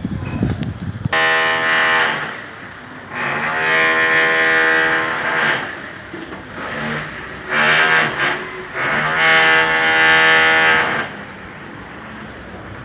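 Demolition hammer (martelete) breaking concrete in four bursts of fast hammering. Its pitch rises as each burst starts and falls as it stops. A few low thuds come just before the first burst.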